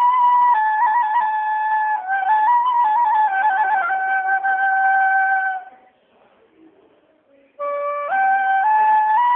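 Background music: a slow melody on a flute-like wind instrument, long held notes with a few quick trills. It breaks off for about two seconds past the middle, then starts again.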